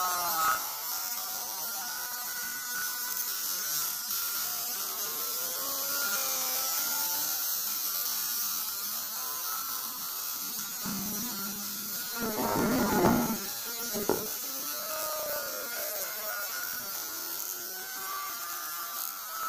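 Steady hiss of meat sizzling on a charcoal table grill, with faint room noise behind it and one short, louder sound about two-thirds of the way through.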